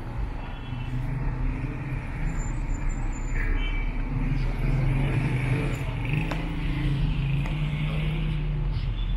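Street traffic with a motor vehicle's engine running close by, a low steady hum that grows louder over the first few seconds and holds.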